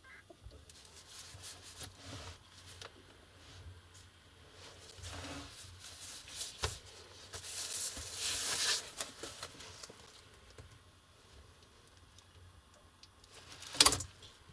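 Handling noise of a laptop and a sheet of pink packing foam: soft rustling and scattered light clicks, with a louder rustle midway and one sharp click near the end.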